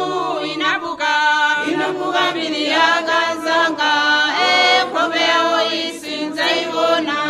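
Choral singing in long held notes, gliding slowly from one pitch to the next.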